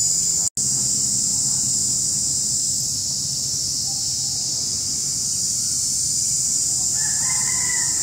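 Steady high-pitched insect drone, with a rooster crowing near the end. The sound cuts out for an instant about half a second in.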